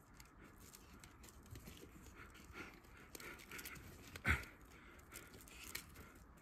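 Faint scuffling and rustling of a fisher caught in a foothold trap struggling while hands and a stick work around it in brush and snow, with one louder sharp sound about four seconds in.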